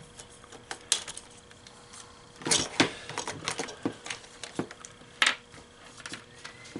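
Small plastic parts of a bill validator clicking and clacking as its rollers and rubber drive belts are pulled off by hand: irregular light clicks, with a few louder clacks near the middle and about five seconds in.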